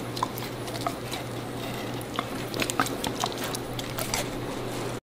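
A dog licking and biting at a slice of watermelon: an irregular run of small wet smacks and clicks from its mouth on the juicy flesh.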